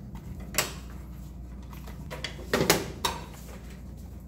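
Clicks and knocks of a small plastic card-reader box and its cables being handled and fitted inside a vending machine door: one sharp click about half a second in, then a quick cluster near the middle. A steady low hum runs underneath.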